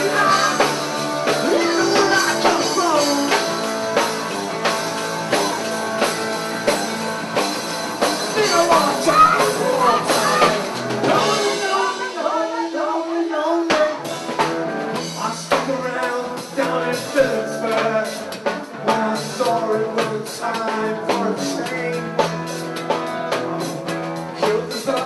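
Live rock band playing: male lead vocals over electric guitar, bass and a drum kit. The bass and drums drop out briefly about halfway through, then the band comes back in.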